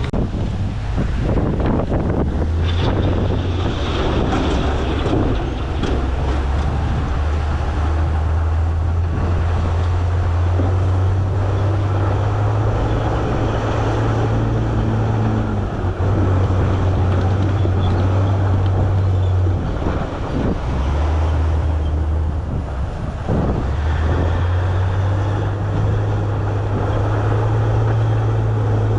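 Heavy diesel engine of earthmoving machinery running under load. It makes a steady low drone that shifts up and down in pitch several times, over a constant rough noise.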